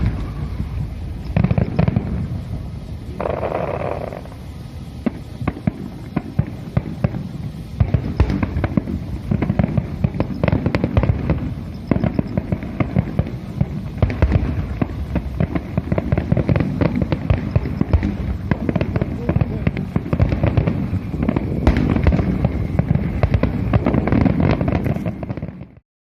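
Fireworks display finale: shells bursting in a rapid barrage, scattered at first and then packed densely from about eight seconds in, stopping abruptly near the end.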